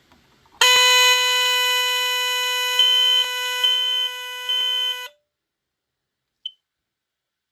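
Two smoke alarms sounding at once. The old BRK 769AC/DC gives a loud, steady, low buzzing tone. Over it, a modern smoke detector's higher-pitched beep sounds three times in a row. Both cut off together about five seconds in, and one faint short chirp follows.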